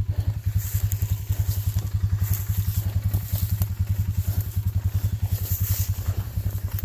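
An ATV engine idling with a steady, fast, even putter.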